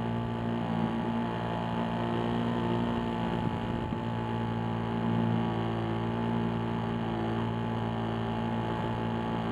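RC model airplane's motor and spinning propeller, heard close up from the onboard camera, humming at a steady pitch.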